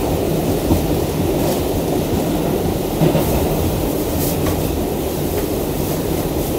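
Interior of an R142 subway car running between stations: a steady, loud low rumble of wheels and running gear, with a few sharp clicks over the track.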